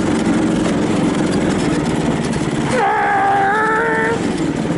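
Small single-cylinder Briggs & Stratton 144cc engine of a homemade go-kart-based truck running as it drives. For about a second and a half past the middle, a steady higher-pitched tone with a slight waver sounds over the engine.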